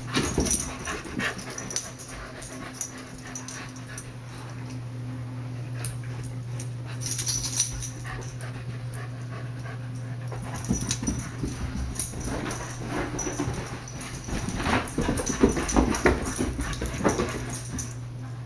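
Husky puppies playing wildly: puppy yips and whines mixed with scuffling and sharp knocks, busiest in the second half, over a steady low hum.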